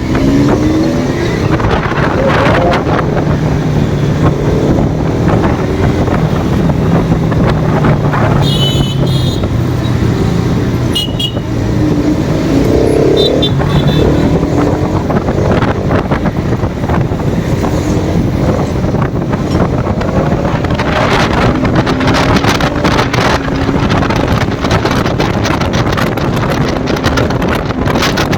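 Motorcycle engine running in city traffic, revving up and down as the bike rides along, with vehicle horns beeping a few times partway through. Wind buffets the microphone in the last few seconds.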